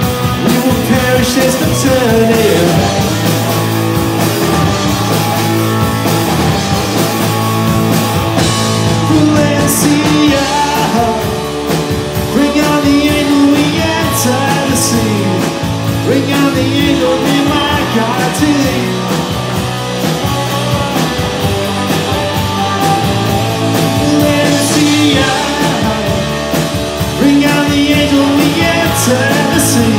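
Live rock band playing a song: a singer over guitars, electric bass and a drum kit with cymbals.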